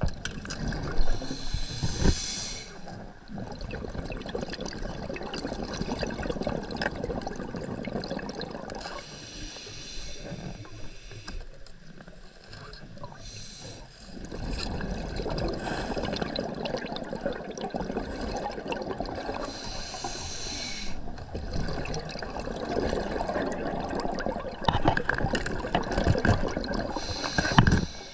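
A scuba diver breathing through an open-circuit regulator underwater: a hissing inhalation about every eight to ten seconds, four times, each followed by a long gurgling rush of exhaust bubbles.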